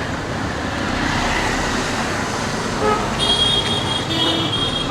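Road traffic noise running steadily, with a vehicle horn sounding in several short, high honks in the second half.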